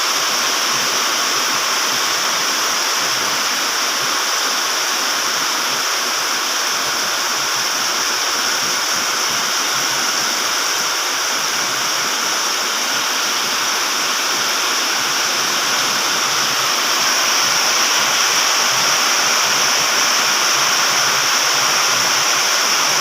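Heavy rain pouring steadily, a dense, even rush of water.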